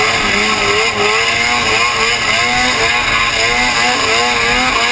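Ski-Doo snowmobile engine running at high revs while skimming over water, its pitch wavering up and down about twice a second, over a steady hiss.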